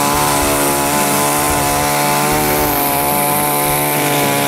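Small orange chainsaw running at a steady speed, an even, unchanging drone.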